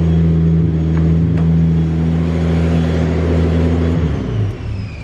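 Datsun 280ZX's turbocharged L28E straight-six engine running steadily at idle, then switched off with the key about four seconds in, stuttering as it winds down. A faint high whine falls in pitch as it runs down.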